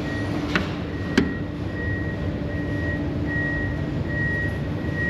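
Steady low mechanical hum of a running machine with a thin high whine, broken by two sharp clicks within the first second or so.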